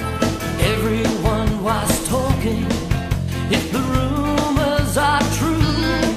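Live rock band playing the song: guitars over bass and drums with a steady beat.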